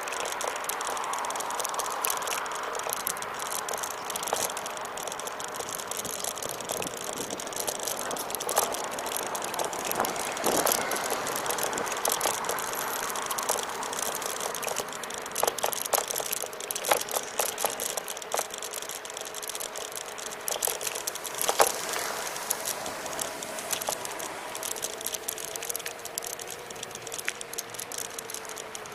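Xplorer Ambassador electric scooter riding along, its motor giving a steady whine that drifts slightly up and down in pitch, with frequent rattling clicks from the scooter as it rolls.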